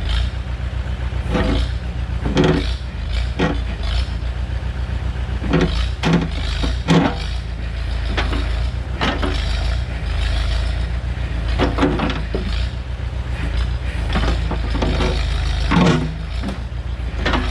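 Backhoe engine running steadily under load while digging a pier hole, with irregular knocks and scrapes from the bucket working the ground.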